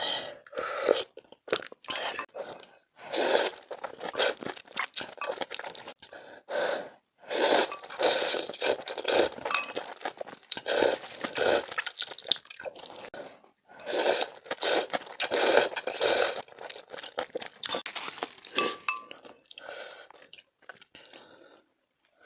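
Close-miked eating: bites and crisp, crunchy chewing in irregular bursts, with short pauses between mouthfuls.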